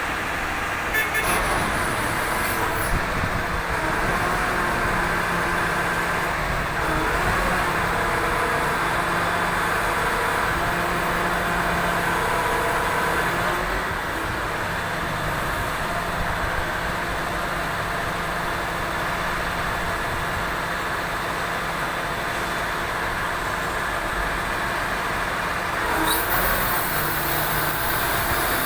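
A heavy machine's engine running steadily, with a few held tones over a dense rumble; a hissier high sound joins near the end.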